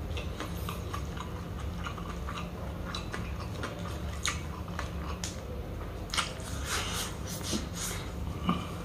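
Close-miked chewing of chicken sisig, with wet mouth clicks and smacks. A few louder, sharper smacks come between about six and eight and a half seconds in, as more food goes into the mouth.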